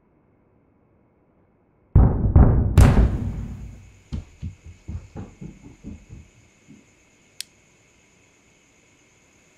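A sudden loud, deep boom about two seconds in, a film score impact hit, trailing off over a second or two. A run of softer thumps follows, fading out. A steady high ringing starts with the boom and carries on.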